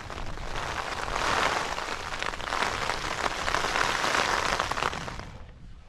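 Heavy rain drumming on a nylon tent fly, heard from inside the tent as a dense patter of drops. It swells twice and dies away near the end.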